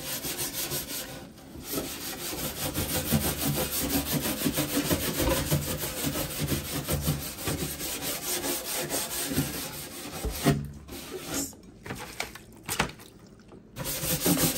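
Fast back-and-forth scrubbing strokes on a kitchen cabinet shelf that has been sprayed with cleaner, scouring off built-up dirt. The scrubbing runs steadily with a short break about a second in, then comes only in short spurts with pauses from about ten seconds in.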